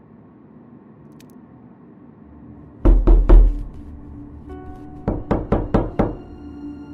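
Loud knocking over soft ambient music. Three heavy knocks come in quick succession about three seconds in, then five quicker, lighter knocks at about four a second near the end.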